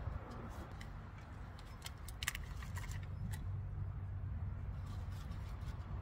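Steady low wind rumble on the microphone, with scattered light plastic crinkles and clicks as a seedling's root ball is set into a thin black plastic nursery pot and potting soil is handled; the sharpest crinkles come about two seconds in.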